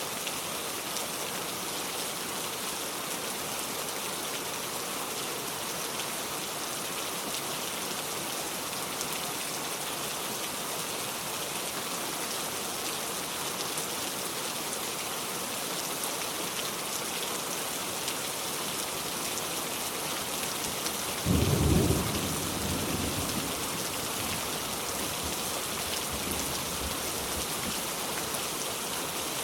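Steady heavy rain falling, with a sudden deep thunderclap about two-thirds of the way through that rumbles away over a few seconds.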